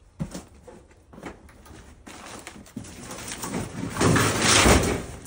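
Cardboard moving box being hauled out of piled clutter: a couple of light knocks, then rustling and scraping that builds to a loud scrape of cardboard against other items about four seconds in.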